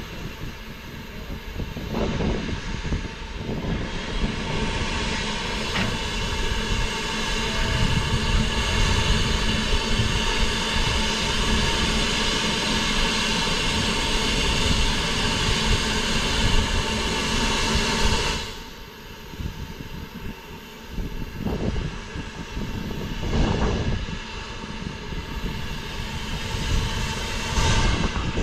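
BR Standard Class 9F steam locomotive standing and letting off steam in a loud, steady hiss that cuts off abruptly about eighteen seconds in. A lower rumble remains, with a couple of short surges.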